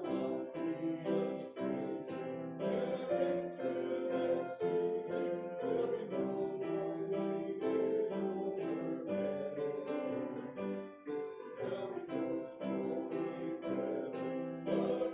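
Congregation singing a hymn, led from the pulpit, with piano accompaniment; the sound dips briefly about eleven seconds in.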